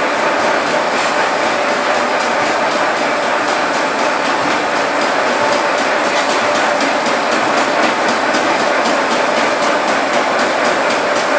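Polypropylene brush-filament processing machines running: a steady mechanical din with a fast, even clatter of several strikes a second, plainer in the second half.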